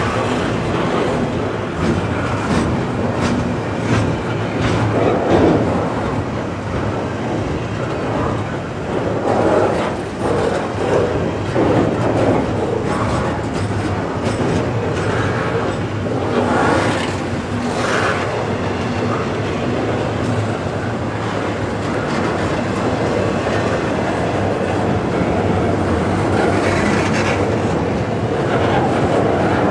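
Double-stack intermodal well cars of a freight train rolling slowly past: a steady rumble of wheels on rail, with scattered clicks and clanks as the wheels cross joints.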